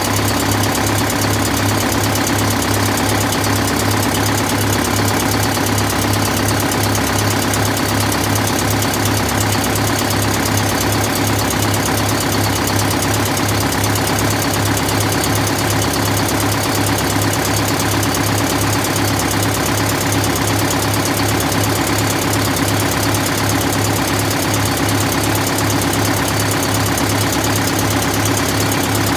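Detroit Diesel 8V71 two-stroke V8 diesel of a 1968 MCI 5A coach idling steadily shortly after a cold start, heard at its open rear engine bay.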